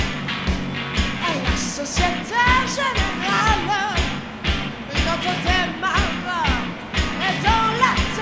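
French rock song with a steady drum beat and bass line, and a sung melody coming in about a second in.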